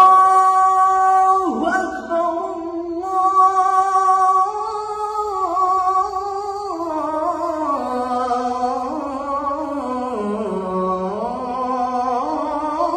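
A young man's unaccompanied voice sustaining a slow, ornamented melody, holding long notes that glide up and down, sinking to its lowest pitch around ten seconds in and then climbing again.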